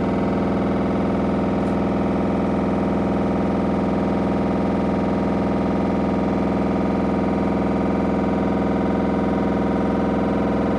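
Samsung front-loading washing machine running with a steady, very loud rattle: a fast buzzing vibration that holds at one pitch throughout.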